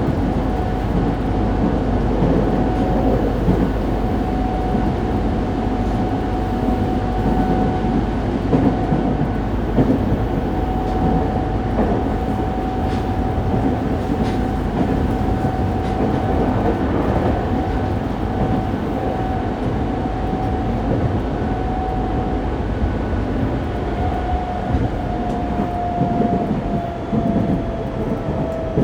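Running sound of a Fukuoka City Subway 2000-series train with a Hitachi GTO-VVVF inverter, heard inside the car: steady rumble of wheels and rails under a thin steady motor whine. The whine slides down in pitch over the last few seconds as the train starts to slow.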